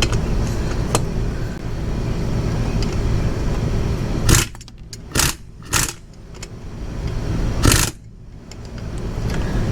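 Hand tools working on a Yamaha SR400's fasteners: a low rumble of handling noise, then five short sharp metallic scrapes and clinks over the next few seconds.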